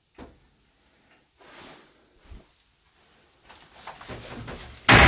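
Wooden door being knocked on and handled: a few soft knocks and rustles, then one loud bang near the end.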